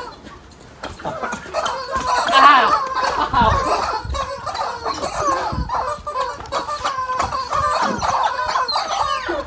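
Squeaky rubber chicken toys squawking over and over as they are stepped on underfoot, starting about a second in and going on almost without a break.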